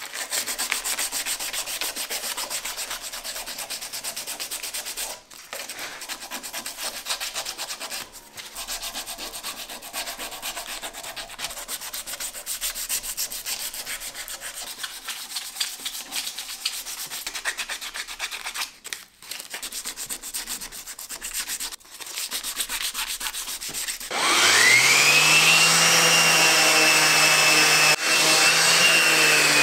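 Hand sanding of a walnut knife handle with 180-grit sandpaper: fast back-and-forth rubbing strokes with a few brief pauses. About 24 seconds in, a DeWalt random orbital sander starts up, its whine rising quickly and then running steady and louder.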